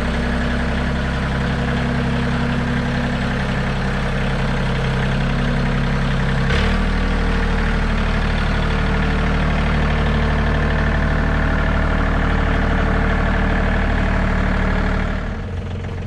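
John Deere 3320 compact tractor's three-cylinder diesel engine running steadily; about six and a half seconds in, the engine note changes with a click.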